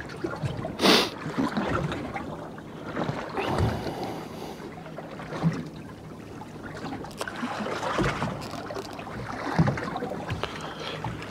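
Small waves lapping against the hull of a drifting fishing boat, with some wind and a few knocks, the sharpest about a second in.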